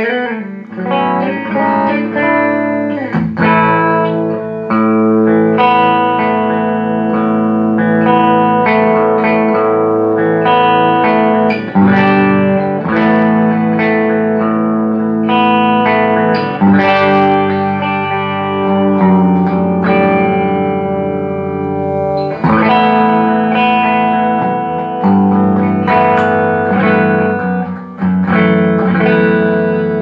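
Electric guitar played through a Soldano Atomic 16 replica tube amp head into a slanted 2x12 cabinet loaded with an Electro-Voice EV12 and an Eminence Legend speaker. Chords are let ring for a few seconds each, changing every few seconds.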